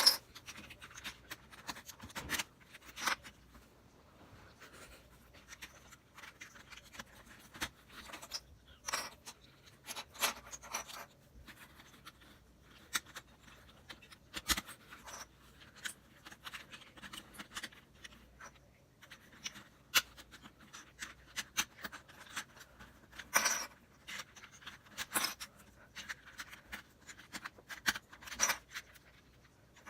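Irregular clicks and scrapes of plastic Rubik's Cube pieces being handled, pried apart and pressed back together, with a few sharper clacks.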